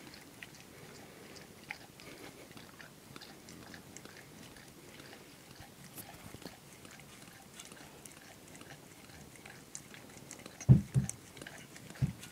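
A dog licking a frosted muffin treat in a metal bowl: quiet, scattered wet licking clicks. Near the end come two or three dull, deep thumps, the loudest sounds.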